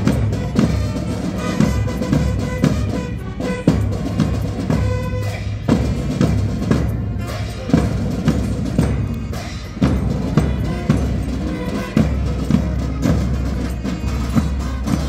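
Marching band playing a march: snare and bass drums beating a steady rhythm under brass horns holding a tune.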